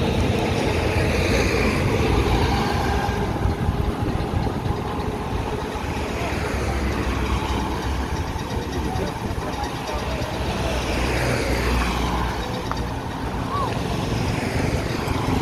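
Diesel engine of a Fuso boom truck running steadily to power its crane while it holds a load, with voices over it.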